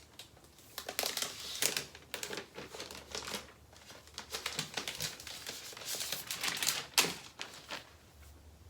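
Packaging crinkling and rustling in irregular bursts, with sharp clicks and taps, as a new MacBook Air is taken out of its protective wrapping.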